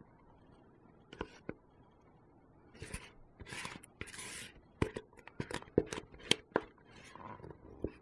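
Spatula scraping thick cream-cheese filling out of a mixing bowl onto a biscuit base: soft scrapes and rustles, with a quick run of sharp clicks and knocks in the second half.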